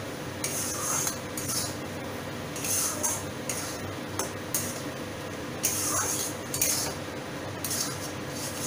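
A spatula scraping and stirring a thick, sticky mixture of roasted gram flour, khoa and sugar syrup in an aluminium kadhai, in repeated strokes roughly once a second.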